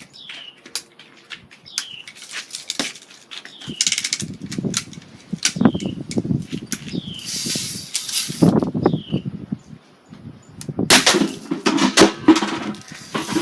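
Red Ryder lever-action spring-piston BB gun firing again and again, each shot a sharp snap with a short falling ping after it, with the gun handled and cocked between shots.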